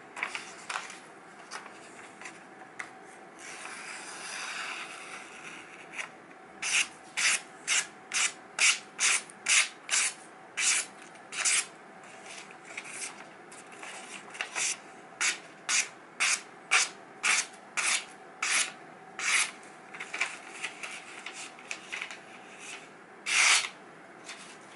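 A freshly sharpened knife slicing through a sheet of paper in a paper-cutting test of the edge: a long run of quick, crisp slicing strokes, about two a second, with one longer slice near the end.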